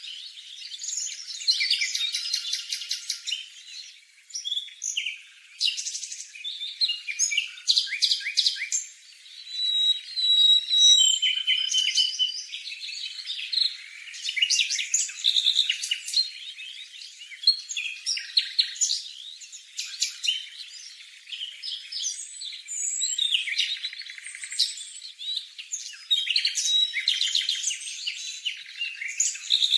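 Formosan barwing calling: a busy run of varied chirps, rapid trills and short whistled notes, going on with only brief pauses.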